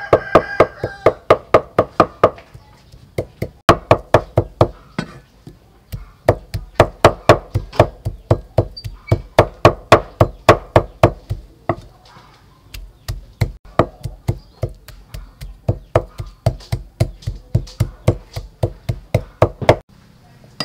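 Kitchen knife rapidly mincing soft flesh on a thick round wooden chopping block: fast, even chops about four a second, with a few brief pauses, stopping shortly before the end.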